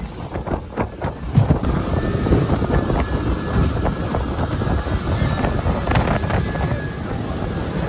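Motorboat under way across the water, with wind buffeting the microphone in uneven gusts.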